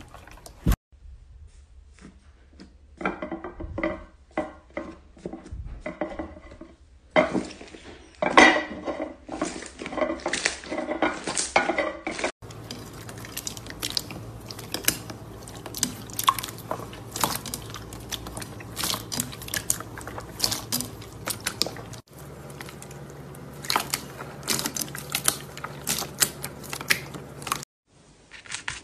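Slime being poked and pressed by fingers: a dense run of wet clicks and small pops. The sound changes abruptly several times as one clip cuts to the next.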